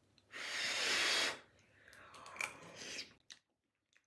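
A person blowing on a hot forkful of biscuits and gravy to cool it: one loud breathy puff lasting about a second, then a softer, longer breath with a small click.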